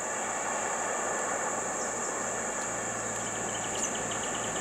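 Insects drone steadily at a high pitch over a motor vehicle engine that runs and slowly grows louder. About three seconds in there is a short run of quick ticks.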